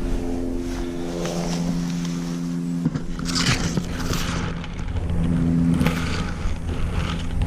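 An engine idling steadily, with scraping and handling noises over it about three to four seconds in and a sharp click near six seconds.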